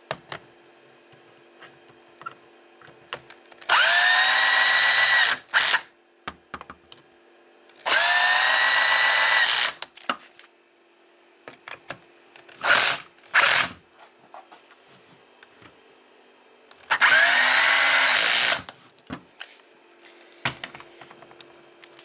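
Cordless drill driving bolts through a metal corner bracket into the pipe frame: three long runs of the motor, each winding up in pitch as it starts, with two short blips in between and small handling clicks in the pauses.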